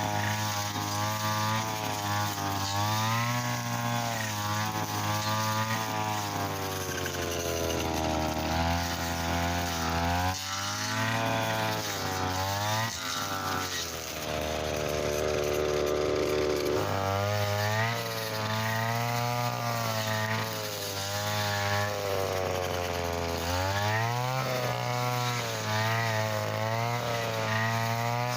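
Brush cutter engine running at high revs while its nylon trimmer line cuts thick, stiff field grass. The engine pitch sags and picks up again several times, staying lower for a few seconds past the middle before rising back.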